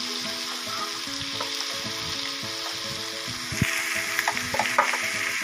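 Chicken pieces in masala sizzling in hot oil in a metal pot while a wooden spoon stirs them. The sizzle grows louder about three and a half seconds in, with a few knocks of the spoon. Soft background music plays underneath.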